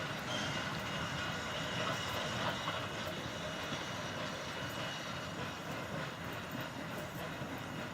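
Steady running noise of a train, an even rumble and hiss with no distinct strokes.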